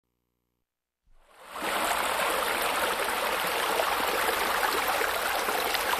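Steady rush of running water that fades in after about a second of silence.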